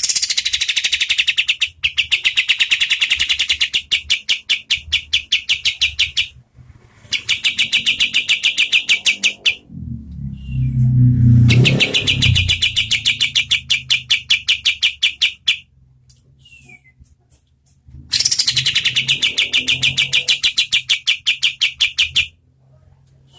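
Olive-winged bulbul (kapas tembak) singing its rapid trill of quickly repeated notes, about ten a second, in four bursts of a few seconds each. A brief low rumble comes in about halfway through.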